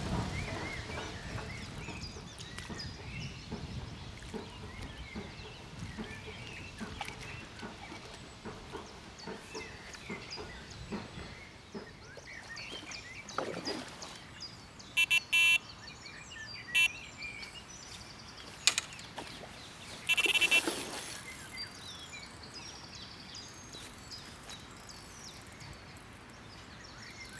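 Quiet bankside ambience with faint bird chirps, broken about halfway through by a few short electronic beeps from a carp bite alarm on the rod pod.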